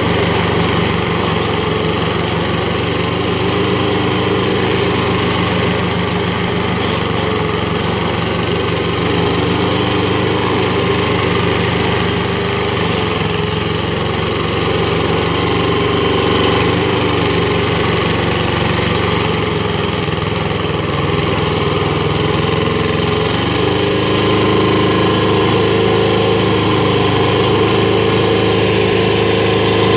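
Predator 28RX stump grinder's engine running steadily under load as its toothed cutter wheel grinds into an oak stump. The note grows a little louder in the last few seconds.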